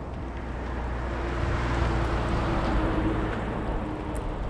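A motor vehicle passing the moving bicycle on the road: its engine and tyre noise swell to a peak about halfway through and then fade, over wind noise on the microphone.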